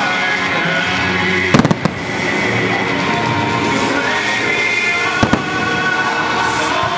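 Fireworks bursting over continuous music: a quick cluster of sharp bangs about a second and a half in, and another bang about five seconds in.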